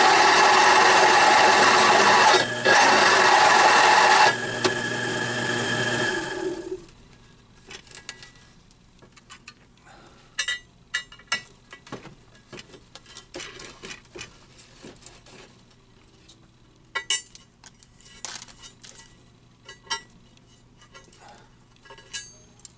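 Drill press driving a four-flute countersink bit into steel plate: a loud, steady grinding cut for about four seconds, a lighter cut until about six seconds in, then the cutting stops. After that come scattered light metallic clinks and taps as steel chips are brushed away and a flathead screw is set into the countersink.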